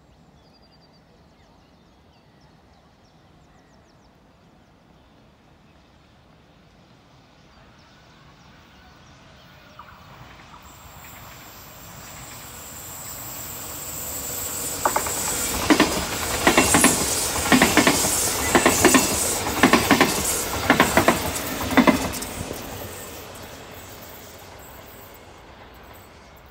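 NS VIRM double-deck electric train passing: its running noise builds, then its wheels clack over rail joints in pairs, about one pair a second, for several seconds before the noise fades away.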